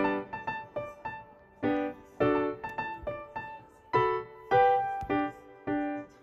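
Background piano music: a light melody of struck notes and chords, each ringing and fading.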